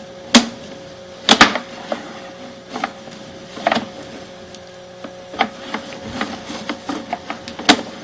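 Sewer inspection camera rig being worked through a drain line: irregular sharp knocks and clicks, about six of them, the loudest about a second and a half in, over a faint steady hum.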